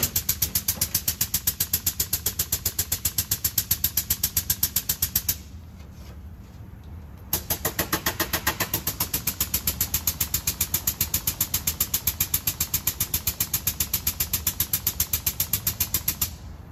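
Cat 279D compact track loader's diesel engine running steadily, with a fast, even clatter about five times a second on top that stops for about two seconds in the middle and then resumes.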